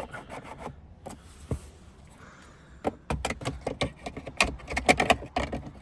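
Plastic trim of a VW Phaeton's rear centre console being pried and worked loose by hand: a string of clicks, knocks and rattles, few at first and coming thick and fast from about halfway.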